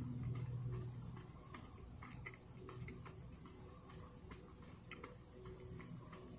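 Faint, irregular wet clicks and crunches of a person chewing a superhot pepper pod with the mouth close to the microphone, with a low hum near the start.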